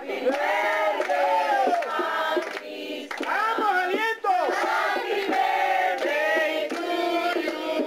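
A group of children and adults singing a birthday song together, clapping along.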